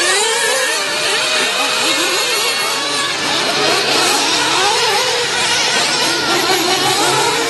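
1/8-scale nitro truggies' small two-stroke glow-fuel engines revving up and down as they race, several high-pitched whines rising and falling over one another without pause.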